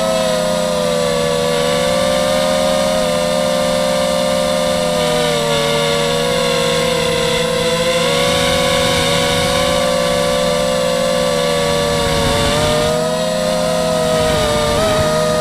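Mini FPV quadcopter's electric motors and propellers whining steadily, the pitch wavering a little up and down, with a brief dip near the end.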